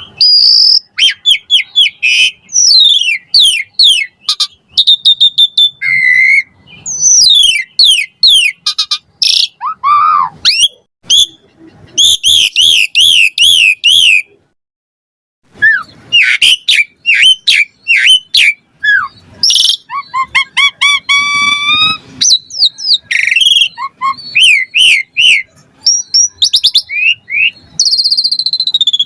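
Pied starling (jalak suren) singing a rapid, varied stream of whistles, chirps, glides and trills laced with mimicked phrases. There is a short pause about halfway through.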